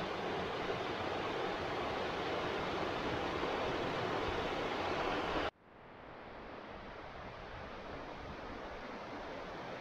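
Mountain river rushing over rocks and rapids, a steady churning water noise. A little over halfway through it cuts off abruptly and fades back in as quieter flowing water.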